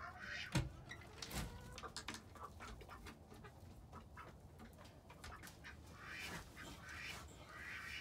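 Ducks quacking quietly among chickens, with scattered short clicks and rustles from the straw bedding.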